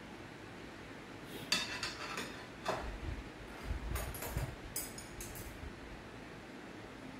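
Metal ladle and chopsticks clinking against a stainless steel pot and small dishes: a scattered run of about seven light clinks and knocks, from about a second and a half in until near the end.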